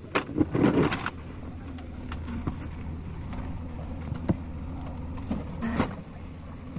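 JCB 3DX backhoe loader's diesel engine running steadily while its bucket digs into stony earth. Stones and soil clatter against the bucket loudly in the first second and again near the end, with a few single knocks in between.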